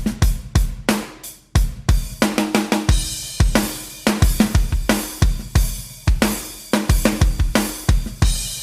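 Music with a steady drum-kit beat: kick, snare and cymbals striking about twice a second over a bass line.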